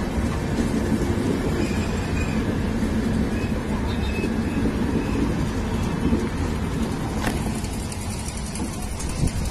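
A passenger train's coaches rolling past close by, a steady low rumble of wheels on the rails, easing a little near the end as the last coaches go by.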